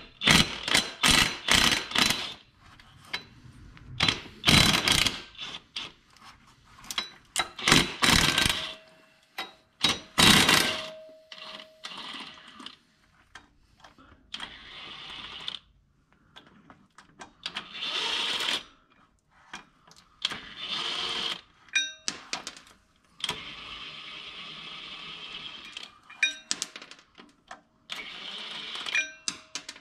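Cordless impact wrench hammering out the flywheel bolts, in repeated bursts. The loudest, longest hammering comes in the first ten seconds or so, then shorter, quieter runs follow.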